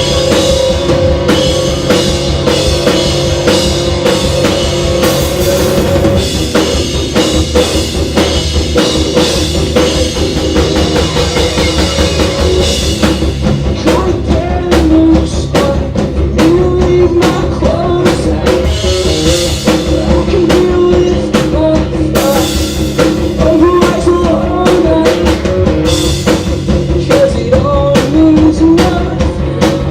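Rock band playing live at full volume: a busy drum kit with cymbals and kick drum over bass and guitars.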